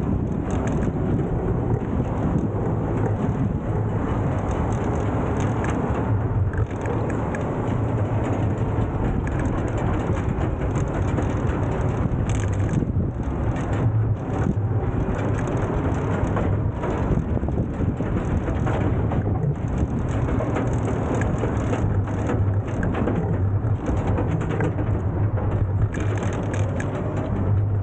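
Nanrobot electric scooter riding over pavement: continuous road and tyre noise with rattling clicks from the scooter, mixed with wind on the microphone.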